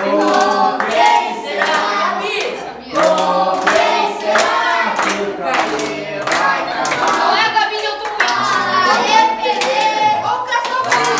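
A group of young voices singing a birthday song together while clapping along in time.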